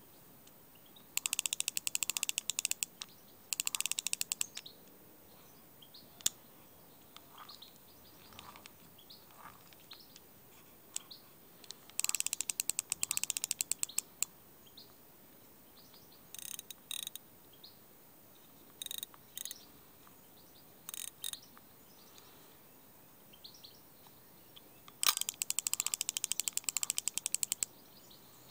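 Intrepid Black Prince Mk1 fixed-spool fishing reel giving out rapid ratchet clicking as it is worked by hand, in about seven bursts, some brief and some two or three seconds long. Birds chirp faintly between the bursts.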